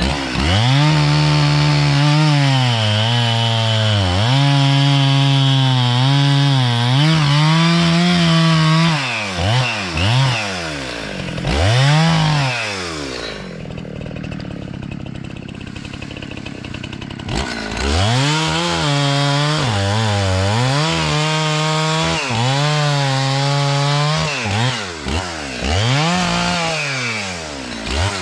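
Chainsaw with a freshly sharpened chain cutting wood. The engine pulls down to a steady note under load and revs up and back down between cuts. It eases off for a few seconds in the middle, then cuts again.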